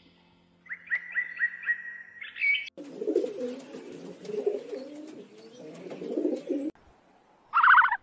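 A bird chirps a quick run of high notes. Then a flock of pigeons coos for about four seconds, and a short loud call comes near the end.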